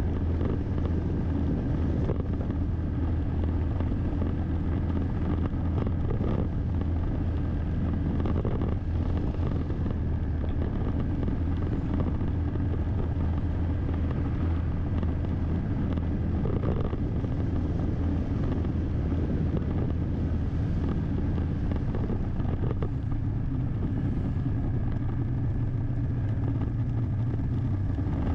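Steady driving noise of a car under way: engine and tyre noise with a constant low hum.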